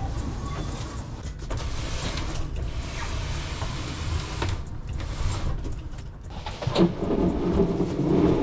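Rustling of plastic stretch wrap and knocks of a shrink-wrapped pallet load being handled in the back of a cargo van, over a steady low rumble; the handling gets louder near the end.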